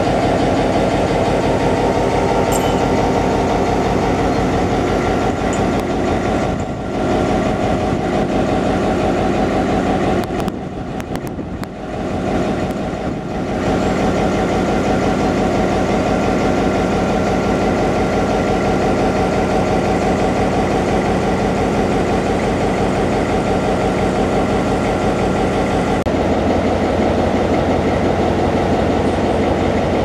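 Two ALCO RS-3 diesel-electric locomotives idling steadily, their V12 ALCO 244 diesel engines running at a constant low idle. The sound drops briefly about seven seconds in and again for a few seconds around twelve seconds.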